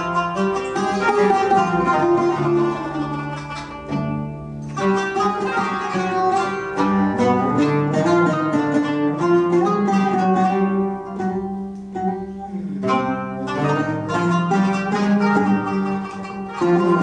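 Instrumental music led by a plucked string instrument playing a melody, thinning out briefly about four seconds in and again around twelve seconds in.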